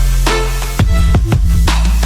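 Background music: a hip-hop/R&B track with heavy sustained bass notes and drum hits, between sung lines.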